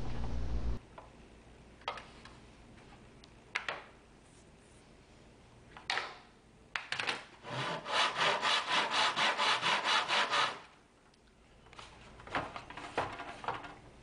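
Hand backsaw cutting through a board in a plastic miter box: a few single strokes, then a run of fast, even strokes at about four a second for some three seconds, then a short pause and lighter strokes near the end.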